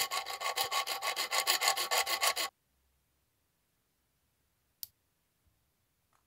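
Hand file scraping in quick, even back-and-forth strokes across the tip of a steel hex key held in a vise, stopping about two and a half seconds in. Later there is one short sharp click.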